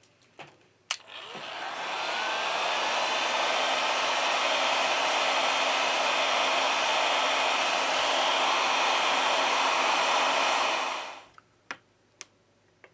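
Electric heat gun switched on with a click about a second in, its fan blowing hot air steadily for about ten seconds, then switched off. A few small clicks from handling the phone follow near the end.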